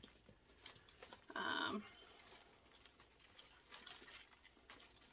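Faint scattered clicks and rustles of a potted plant's root ball and soil being handled, with one short steady-pitched voiced sound, about half a second long, about a second and a half in.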